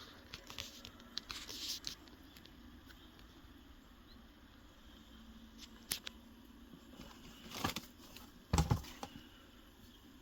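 Shoe box and paper packaging being handled: scattered light rustling and clicks, a quieter stretch, then a short rustle and a soft thump a little past eight seconds in.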